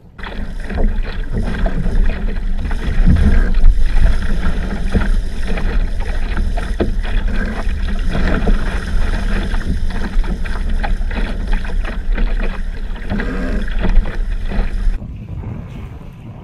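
Water rushing and splashing along the hull of a small fibreglass racing dinghy sailing at speed, mixed with heavy wind buffeting on the microphone that makes a loud low rumble. It starts suddenly and cuts off abruptly about fifteen seconds in.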